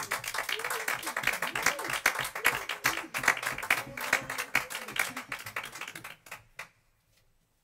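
Small audience applauding. The clapping is dense at first, then thins out and dies away with a few last claps near the end.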